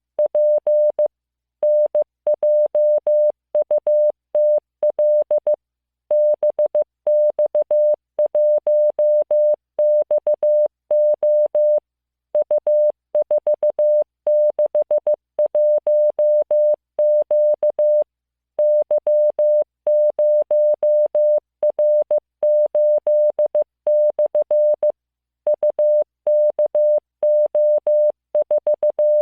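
Morse code practice tones: a single steady mid-pitched beep keyed on and off into dots and dashes, sent as random five-character code groups with short pauses between the groups.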